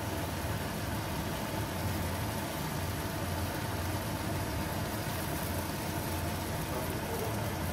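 Steady hiss with a low hum from stovetop cooking: an egg omelette frying in a pan.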